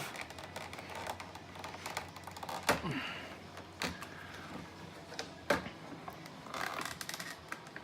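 Scattered clicks and knocks of plastic parts being handled as a small door panel on a pachinko machine is popped off, with a couple of sharper clicks in the middle.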